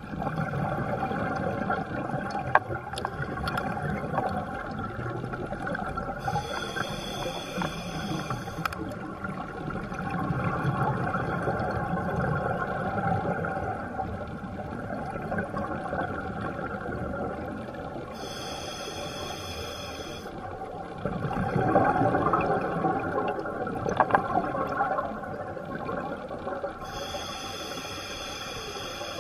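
Scuba diver breathing through a regulator underwater. Three breaths come about ten seconds apart, each with a high hiss lasting two to three seconds, over a constant underwater rumble.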